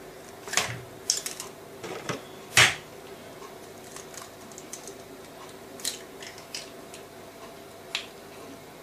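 Eggs cracked against the rim of a stainless steel bowl and their shells handled while separating whites from yolks: a scattering of short sharp clicks and taps, the loudest about two and a half seconds in.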